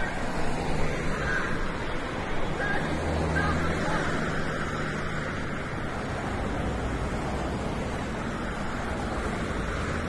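Steady rushing outdoor background noise, with a low engine-like hum for a few seconds in the middle and faint voices in the first few seconds.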